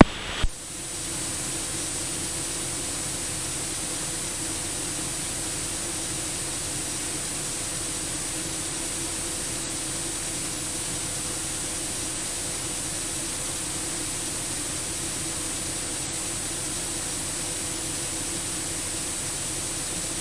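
Steady hiss of a cockpit radio and intercom audio feed between transmissions, with a short click about half a second in.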